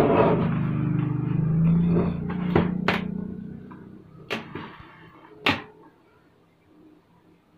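A low steady hum that fades away over the first three seconds or so, then four sharp knocks and clunks as the opened-up Panasonic mini hi-fi's metal and plastic case is handled and set down on its back.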